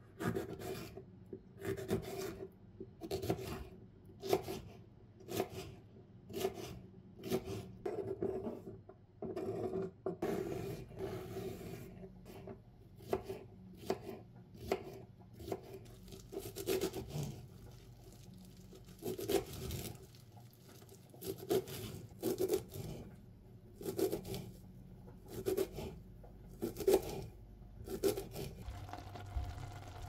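Kitchen knife chopping on a wooden cutting board, cutting through vegetables and fresh parsley and dill: a long run of short, sharp cuts, roughly one a second.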